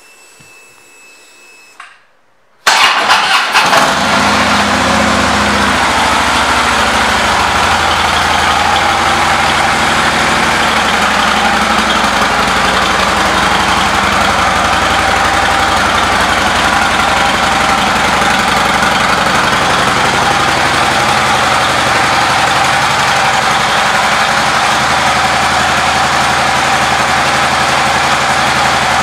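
2012 Harley-Davidson Ultra Limited's Twin Cam 103 V-twin being started: it catches at once a little over two seconds in, then idles steadily, its pitch easing down after the first several seconds.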